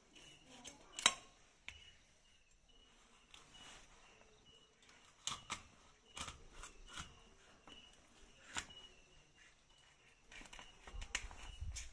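Knife blade scraping the scales off a large tilapia, in short irregular rasping strokes and knocks, the sharpest about a second in.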